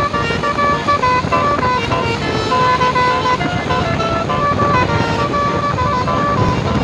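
Basuri multi-tone telolet bus horn playing a quick tune of stepped horn notes, over a low rumble.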